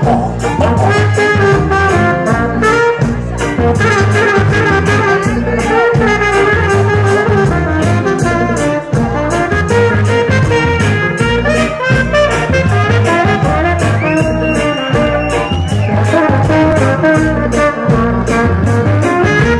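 Live ska band playing loudly, with trumpet and saxophone leading over drums and guitar in a steady, driving beat.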